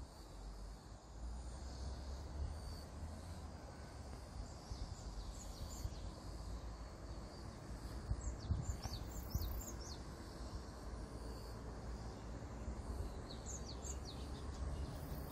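Small birds chirping in short, falling notes, in a few bursts: around five seconds in, again from about eight to nine and a half seconds, and near the end. Under them runs a steady low rumble.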